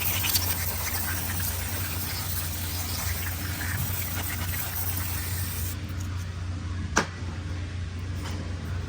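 A steady spraying hiss while a transmission valve body is being cleaned, over a low steady hum. The hiss cuts off about six seconds in, and a single sharp click follows about a second later.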